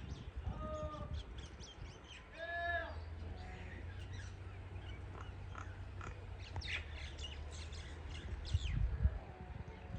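Small birds calling. Two short squawk-like calls come early, the second about two and a half seconds in, and a run of quick high chirps follows in the later part.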